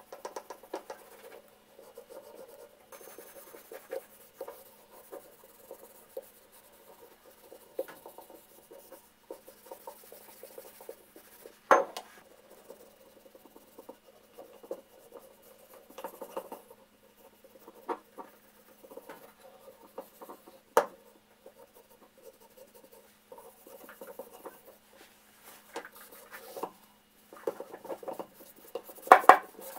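Hands handling and rubbing down a steel Millers Falls No. 772 bit brace on a wooden bench. Light scratching and rubbing goes on throughout, broken by a few sharp metal clicks; the loudest click comes about twelve seconds in. Near the end, a cloth towel rubbing over the metal adds a busier stretch of scraping and clicks.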